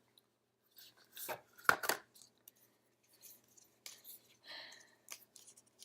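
Apple Watch packaging being handled: a few short clicks and rustles of box and wrapping, the sharpest pair about two seconds in, as an extra band is taken out.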